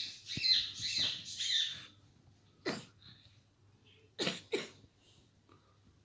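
A rose-ringed (ringneck) parakeet chatters in high, warbling calls for about two seconds. Then come three short, sharp sounds: one near the middle and two in quick succession a little later.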